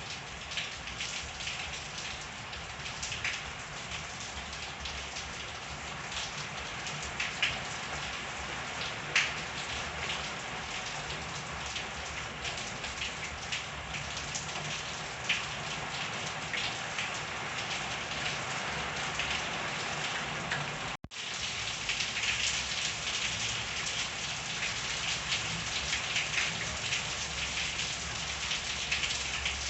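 Steady rain falling, with many separate drops striking hard surfaces close by. The sound cuts out for an instant about two thirds of the way through.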